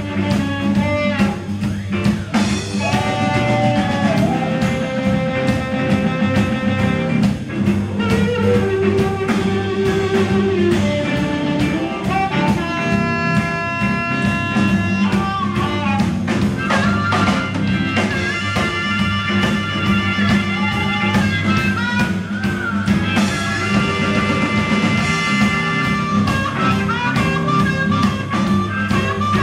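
Live blues band: a harmonica cupped against a handheld microphone plays the lead in held, bending notes over electric guitar, acoustic guitar and drums.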